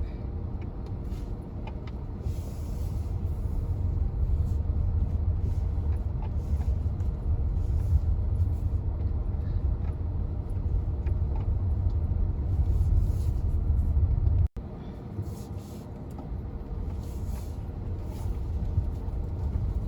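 Steady low rumble of a moving MG HS SUV, mostly road and tyre noise, with the sound dropping out for an instant about two-thirds of the way through.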